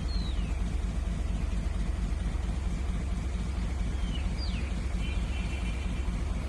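Steady low engine rumble, with birds chirping a few short, falling notes and a brief trill over it.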